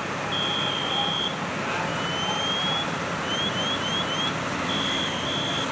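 Fire apparatus engines running with a steady noise. Over them, a high-pitched electronic alarm cycles through patterns: a run of quick rising chirps, a held tone about a second long, then a slow rising sweep, and the cycle repeats.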